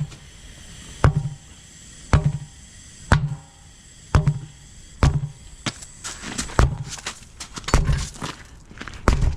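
Hammer striking a deflated semi truck tire to break its bead: about ten heavy blows, roughly one a second, each a dull thud with a short ring. The bead comes loose from the rim under these blows.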